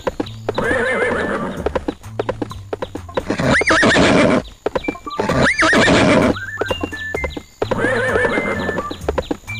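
Horse sound effects: hooves clip-clopping steadily while horses whinny four times, at the start, twice loudly in the middle, and again near the end.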